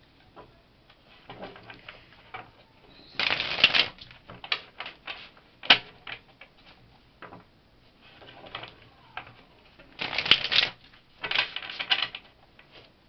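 A tarot deck being shuffled by hand: bursts of rapid card clicks about three seconds in and again around ten to twelve seconds in, with scattered single card snaps between.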